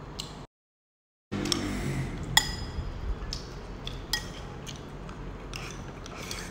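Chopsticks clinking and tapping against a porcelain rice bowl while eating, a handful of sharp clinks spread through, the loudest about two and a half seconds in. A moment of dead silence just under a second long comes about half a second in.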